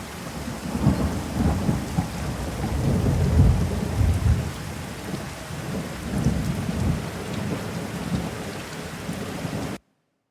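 Steady rain with rolling thunder rumbling low underneath, swelling and fading in waves; it cuts off suddenly near the end.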